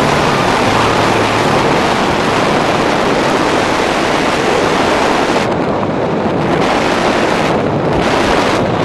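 Loud, steady wind noise on a skydiver's helmet-camera microphone during descent under an open parachute canopy. The high hiss thins out briefly a few times in the second half.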